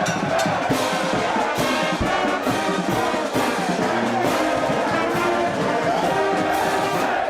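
A brass band playing, with trombones and trumpets sounding together.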